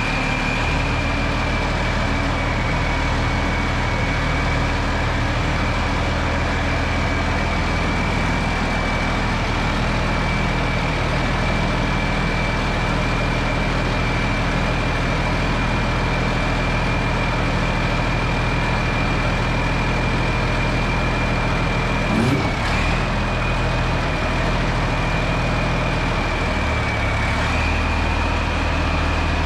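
John Deere 4650 tractor's six-cylinder diesel running steadily at idle, with a steady high whine over the engine note and one short blip about two-thirds of the way through.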